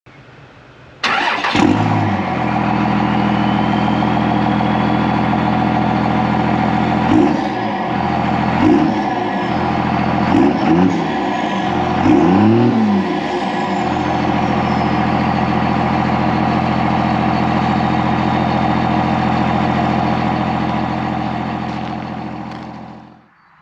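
1999 Dodge Ram 2500's 5.9 Cummins turbodiesel starting about a second in and settling to idle, then blipped four times, each rev rising and falling in pitch. It idles steadily afterwards and fades out near the end.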